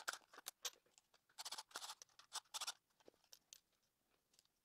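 Plastic parts and small screws being handled as a Roomba wheel module's plastic gearbox housing is taken apart: faint, irregular scratchy clicks and rattles in two short clusters, with no motor sound.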